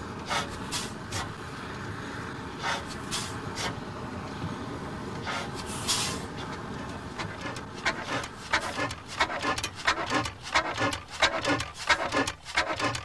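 The 1895 Hornsby-Akroyd single-cylinder paraffin hot-bulb oil engine being started and turning over. First come separate hissing puffs; from a little past halfway there is a quicker run of clattering knocks.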